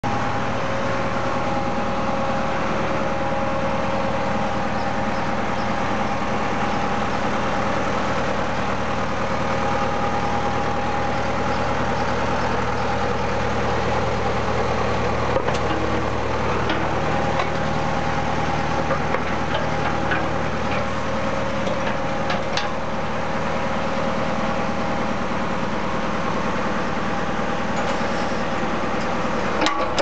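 Tractor diesel engine running steadily with a steady whine over it, powering a Foster D2 backhoe; a few light clicks and knocks come through in the second half.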